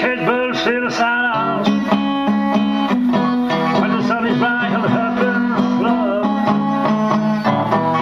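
Blues music with plucked guitar, some notes bending in pitch in the first second.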